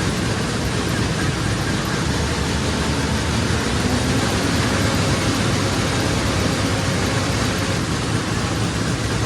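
Combine harvester running steadily with its freshly repaired header kicked into gear for a test run: a loud, even, unbroken mechanical din.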